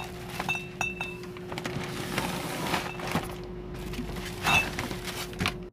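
Plastic shopping bags rustling and crinkling as they are handled, with scattered light knocks from the bottles and packets inside. A steady low hum runs underneath.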